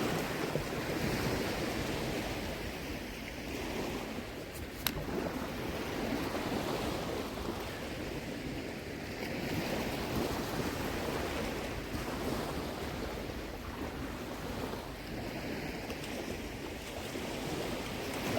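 Small waves washing onto a sandy shore, swelling and easing, with wind buffeting the microphone. There is a single sharp click about five seconds in.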